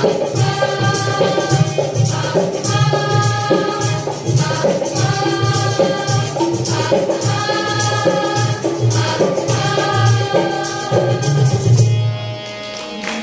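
A girls' group singing a patriotic song in unison, with harmonium and a dholak hand drum keeping a steady beat. The drum stops about twelve seconds in and the song ends on a held note.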